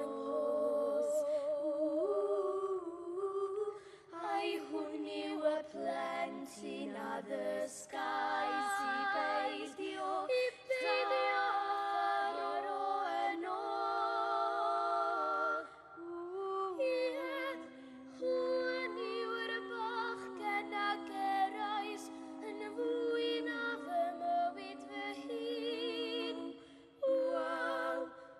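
Three young girls' voices singing together in harmony, the held notes wavering with vibrato. The singing comes in phrases, with short breaks between them.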